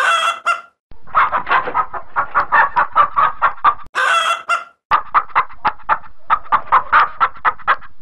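Chicken clucking loudly in a fast run of clucks, about five a second. The run is broken twice by a longer squawk of about half a second, once at the start and once about four seconds in.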